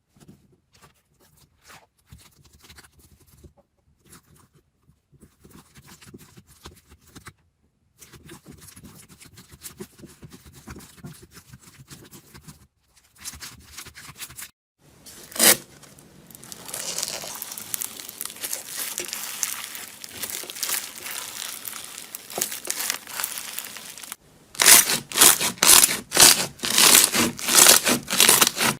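Slime being squished and stretched by hand, with sticky crackling and popping over several short clips. It is quiet at first, and near the end there is a fast run of loud, sharp pops.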